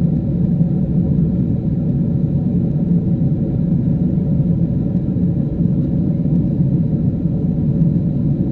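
Steady low rumble of a Boeing 777-300 airliner in cruise, heard inside the passenger cabin: the constant drone of the engines and the air rushing past the fuselage.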